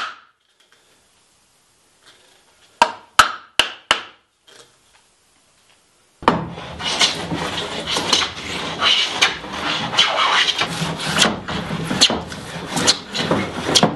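Four sharp taps of a small hammer on a wooden hand plane, setting its blade. About six seconds in come long, continuous rasping strokes of the wooden plane shaving a board flat, in regular surges.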